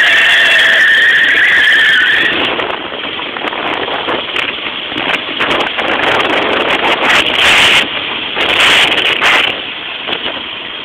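Go-kart tyres squealing in a steady, wavering high screech during a burnout, which cuts off about two seconds in. After that the running kart gives a rough rushing noise, with louder bursts about seven and nine seconds in.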